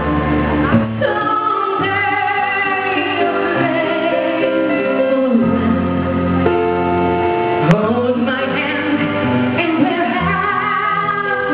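A woman singing a slow song into a microphone over instrumental accompaniment, holding long notes with gliding pitch changes. A brief sharp click sounds about two thirds of the way through.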